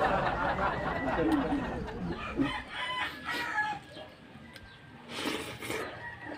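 Rooster crowing, loudest in the first two and a half seconds with falling pitch, then quieter calls. A few short clicks about five seconds in.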